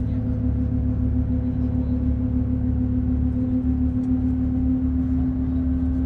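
Inside a moving intercity bus: a steady engine drone at constant pitch over continuous low road rumble.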